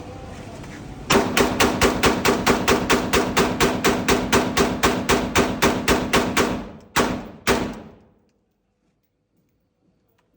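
Saiga-223 Kalashnikov-pattern semi-automatic rifle firing a rapid string of shots, about five a second for some five and a half seconds, then two last shots spaced apart before it stops.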